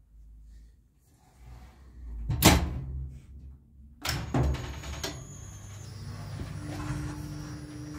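The dumbwaiter's steel landing door is shut with a single loud bang about two and a half seconds in. Just after four seconds there is a click, and the lift drive starts, running with a steady hum and a faint high whine as the car travels down the shaft.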